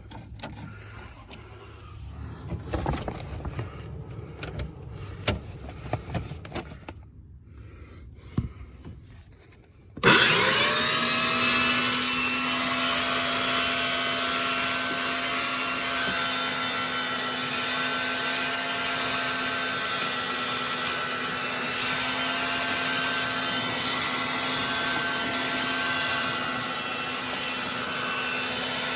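Clicks and knocks of hand tools working on a car door, then about ten seconds in an electric vacuum cleaner switches on, spins up quickly and runs steadily, cleaning shards of broken window glass out of the door.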